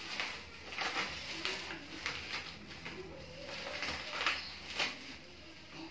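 Plastic bubble wrap crinkling and rustling in irregular bursts as it is pulled and torn off a fishing rod.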